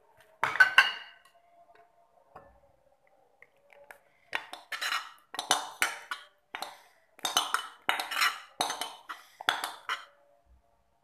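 A spoon clinking and scraping against a bowl as thick strawberry custard is spooned out and spread over cake. A short burst of clinks comes just after the start, then about a dozen scrapes and clinks in the second half.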